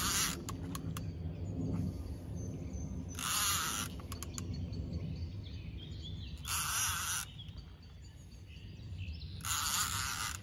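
Spinning reel cranked in three short bursts about three seconds apart as a hooked fish is pumped in on a bent rod. A few light clicks in the first second, and faint bird chirps behind.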